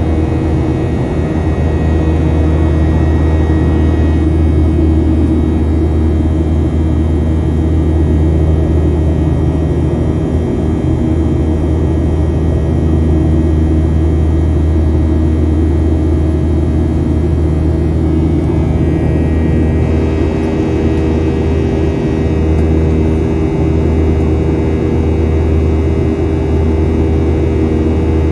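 Boeing 737-800 cabin noise during the climb, heard at a window seat beside the CFM56-7B engine: a steady jet-engine drone with a strong low hum and steady tones above it. The upper tones shift slightly about twenty seconds in.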